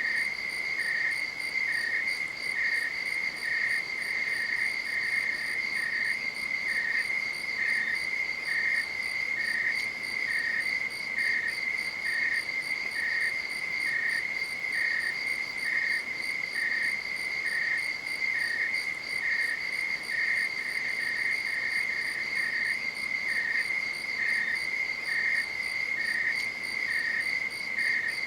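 Night insects calling in chorus: a continuous high trill, with a second, slightly lower chirp repeating about once a second.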